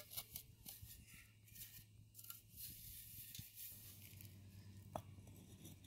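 Faint scraping of a steel trowel dragged through loose bedding sand to level it, in a run of short strokes, followed by a single light click about five seconds in.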